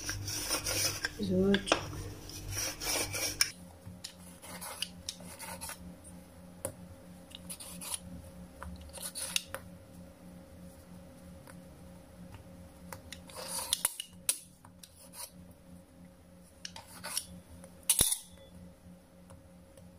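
Whole-wheat dough being cut into portions and the pieces handled on a floured countertop: irregular scraping and rubbing against the work surface, with a few sharper clicks past the middle and one near the end.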